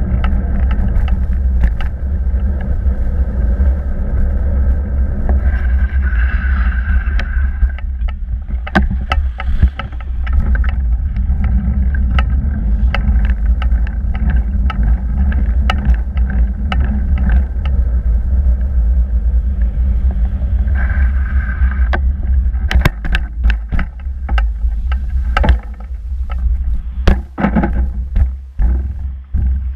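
Wind buffeting the microphone as a bicycle rides along, over a steady low rumble of tyres on tarmac. Frequent knocks and rattles from the bike going over bumps grow thicker in the last several seconds.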